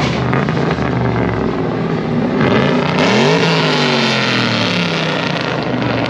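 A car engine running, revved once about halfway through, its pitch climbing and falling back, with a loud exhaust rasp during the rev.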